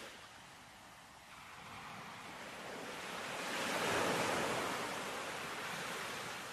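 Sea waves washing in: a rush of surf that swells to its loudest about four seconds in, then slowly ebbs.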